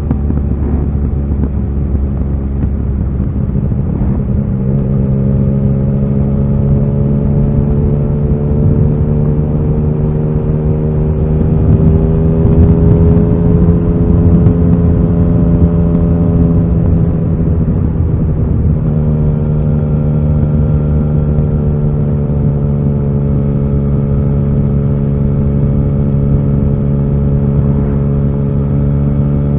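Yamaha XSR900's inline three-cylinder engine running under way. Its note climbs gradually and grows louder through the middle of the clip, drops sharply about 17 to 18 seconds in, then holds a steady cruising pitch.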